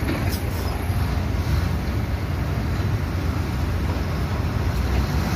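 Steady low rumble of diesel construction machinery: an excavator and dump trucks running on a canal dig.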